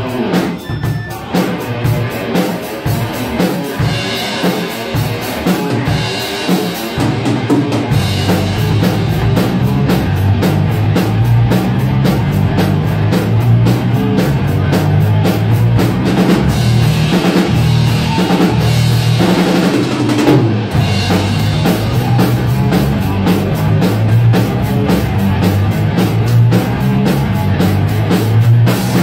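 Live rock band playing an instrumental passage without vocals: drum kit, bass guitar and electric guitar. The drums lead at first, and the band gets fuller and louder, with a heavy bass, about eight seconds in.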